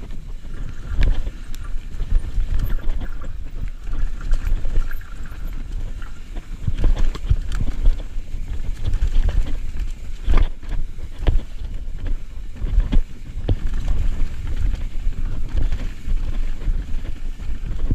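Mountain bike riding fast down a dirt forest trail: a steady low rumble of tyres and wind buffeting the microphone, with frequent sharp knocks and rattles as the bike hits roots and bumps.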